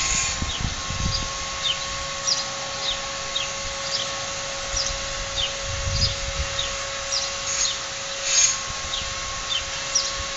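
Small birds chirping, a string of short, quick high notes that slide downward, scattered through the whole stretch. Under them runs a steady hum, with a few brief low rumbles, the largest about six seconds in.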